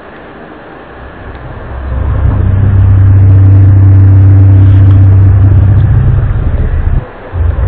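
A loud, low droning hum of the kind reported as the 2012 'strange sounds', from an unidentified source. It swells in over about two seconds, holds steady on one deep pitch, and drops out briefly near the end before coming back.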